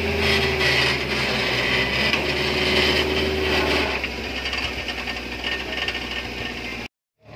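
Suzuki Jimny engine running steadily under load, driving a power-take-off winch as a huge tree stump drags over a concrete path, with a rough scraping noise above the engine. About four seconds in the engine note drops away, and near the end the sound cuts off abruptly.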